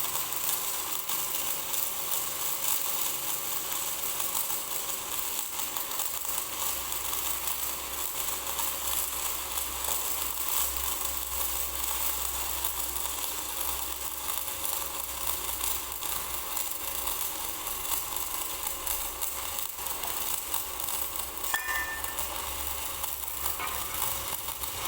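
Stick (shielded metal arc) welding with an LB-52 low-hydrogen electrode: a steady crackling, sizzling arc as the bead is run along a steel pile joint.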